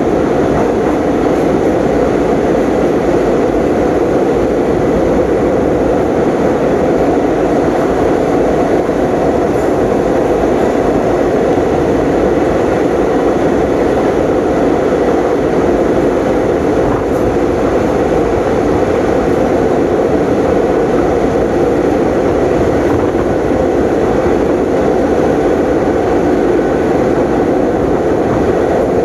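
Train running steadily: a loud, even rumble of a moving train that holds the same level throughout.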